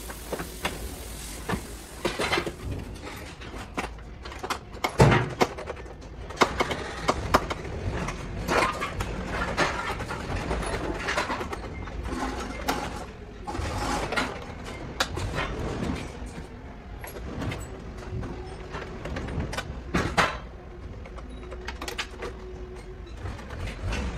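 Irregular clicks, knocks and scrapes of hand tools and plastic trim as a car's cabin is dismantled by hand, with a sharper knock about five seconds in.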